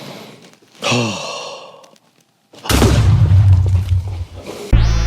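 A breathy, sigh-like voice falling in pitch about a second in, then after a short gap a loud low rumbling boom lasting about two seconds. Music starts near the end.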